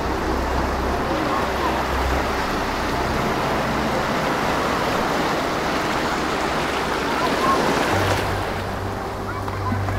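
Ocean waves breaking and washing up a sand beach: a steady rush of surf.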